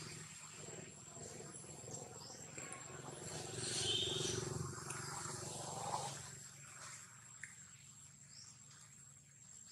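Faint outdoor ambience with a steady high-pitched insect tone, such as a cricket, running throughout. A louder, mixed stretch of sound swells in the middle and fades about six seconds in.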